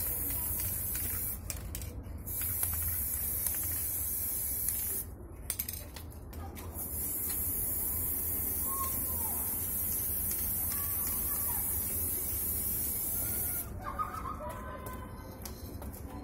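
Aerosol spray-paint can hissing in three long bursts with short pauses between, the last and longest lasting about seven seconds. The spraying stops near the end.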